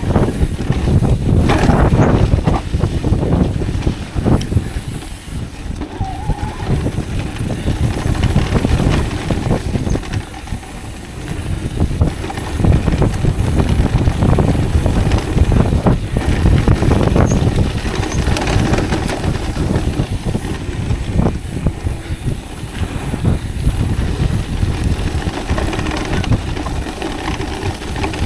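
Mountain bike riding fast down a dirt flow trail: tyres rumbling over the ground and the bike rattling and knocking over bumps.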